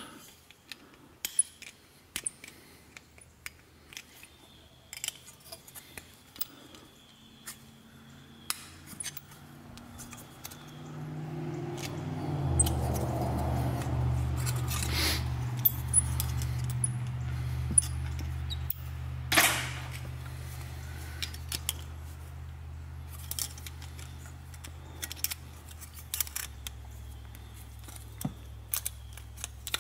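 Scattered small metallic clicks and clinks of hand pliers working copper rose petals. About a third of the way in, a low steady hum comes in and runs on beneath the clicks.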